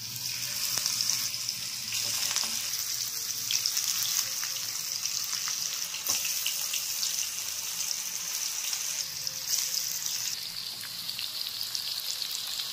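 Masala-coated fish steaks shallow-frying in hot oil in a pan: a steady sizzle with scattered small crackles as the pieces are laid in.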